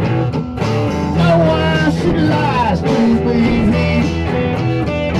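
Blues-rock band music with guitar, a lead line of bending, gliding notes over a steady bass.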